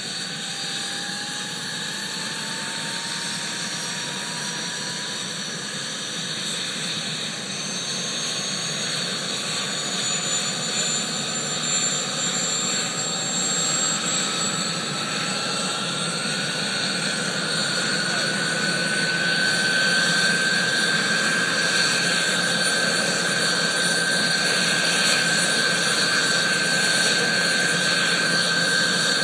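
Jakadofsky model gas turbine of a scale Scout radio-controlled helicopter spooling up on the ground, its whine rising in pitch and growing louder over about twenty seconds, then holding steady as the rotor comes up to speed.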